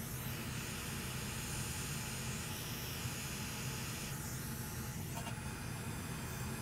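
Hot air rework station blowing, a steady hiss with a low hum underneath, while the TriStar charging chip is heated off the board.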